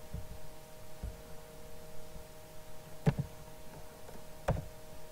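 Steady electrical hum with two sharp clicks from working the computer, about three and four and a half seconds in, and a few fainter ticks earlier.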